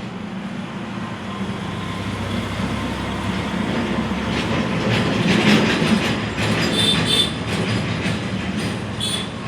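Homemade brushless DC ceiling fan running with a steady low hum. A clattering noise with brief high squeals swells up to a peak around the middle and fades again.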